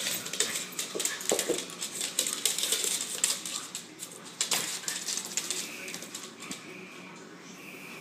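Two small dogs play-fighting on a hardwood floor: rapid clicking and scrabbling of claws with scuffling, thinning out about five seconds in.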